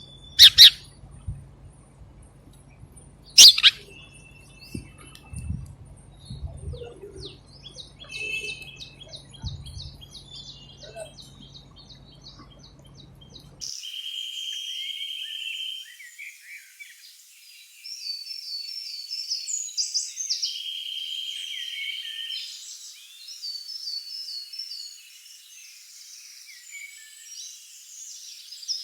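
House sparrows chirping, with two sharp knocks in the first few seconds. About halfway through, the sound changes abruptly to a cleaner, busier stretch of chirping with quick runs of repeated notes.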